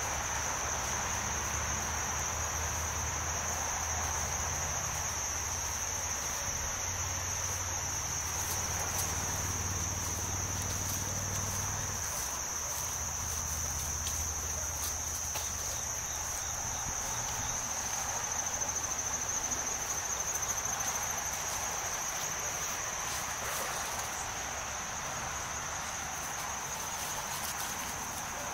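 Outdoor insect chorus, a steady high-pitched drone, with a faint low hum under it that stops about twelve seconds in.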